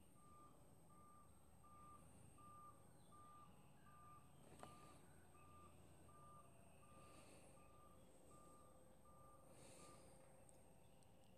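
Faint electronic beeping at one steady pitch, repeating evenly about every three-quarters of a second and stopping near the end, over faint background hiss.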